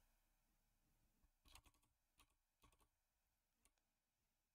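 Near silence with a few faint, scattered computer keyboard key clicks.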